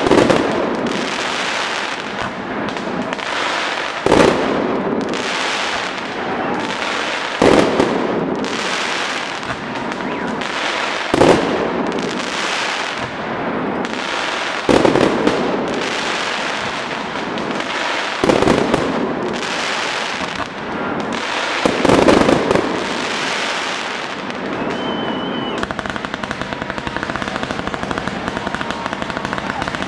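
Festive fireworks salute: seven loud booms of bursting shells, about one every three and a half seconds, each trailing off into a crackling rumble. The bangs stop about three quarters of the way through, leaving a steady hiss.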